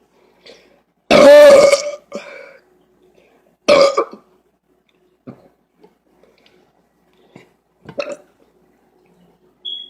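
A woman burping: one long, loud burp about a second in, then a shorter one at about four seconds, followed by a few small, faint ones.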